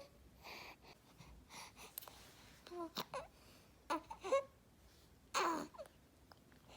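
An infant breathing noisily, with soft breath noises and several short, squeaky pitched sounds; the loudest comes about five seconds in. This is the noisy breathing of a baby with laryngomalacia.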